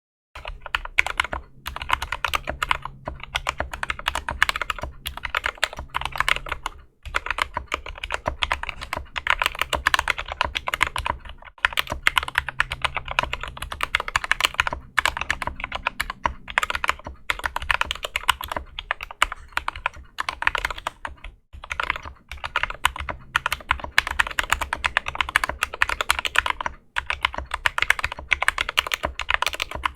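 Steady, fast typing on a Drop CTRL mechanical keyboard fitted with Gateron Clear linear switches, Cherry-profile keycaps, case foam and lubed stabilizers. The typing starts right at the beginning, with a few short pauses between runs of keystrokes.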